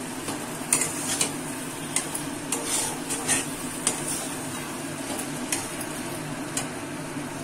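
Flat metal spatula scraping and clinking against a kadai while stirring a thick spiced potato-and-onion masala that sizzles gently in its oil. The oil has separated from the masala, the sign that it is well fried (kosha). Irregular scrapes come most often in the first half.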